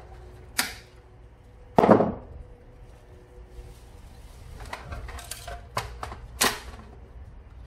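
Knocks and clicks of a metal X-ray tube housing and its plate being handled and worked loose. The loudest knock comes about two seconds in and leaves a brief metallic ring, and a cluster of lighter clicks follows around five seconds in.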